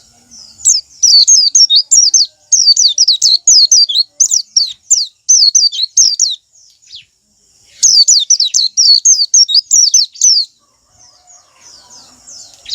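White-eye (pleci) singing: fast, high notes, each sliding downward, about four a second, in two long runs with a pause of about a second between them and a quieter stretch near the end.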